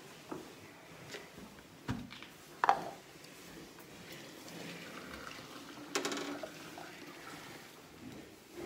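Fresh milk poured from a steel milking vessel into a can, with a few sharp knocks, the loudest about two and a half seconds in.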